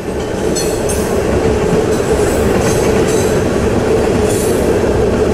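Freight train of covered hoppers and tank cars rolling steadily past a grade crossing: a continuous rumble of steel wheels on the rails, with short high-pitched wheel squeals and clicks here and there, heard from inside a waiting car.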